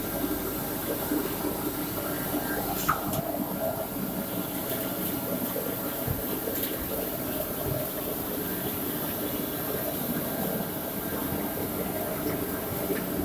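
CNC router production line for furniture panels running, with its dust extraction: a steady rush of machine noise with faint steady tones, and a light click about three seconds in.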